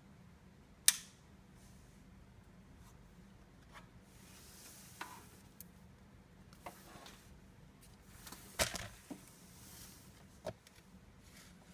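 Scattered sharp clicks and knocks of small hard objects being handled, with light rubbing between them; the loudest click comes about a second in, and a quick cluster of knocks comes past the middle.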